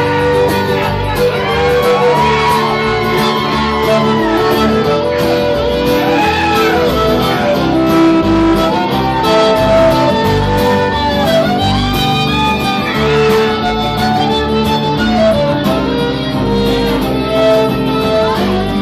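Live acoustic string band playing an instrumental passage: a bowed fiddle carrying curving, sliding notes over strummed acoustic guitars.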